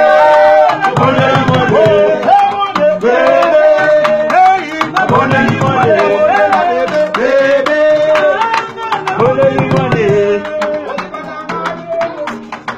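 Live band of electric guitars playing interlocking melodic lines over low bass notes, with a man singing and sharp percussive clicks keeping a steady beat. The music is a little quieter near the end.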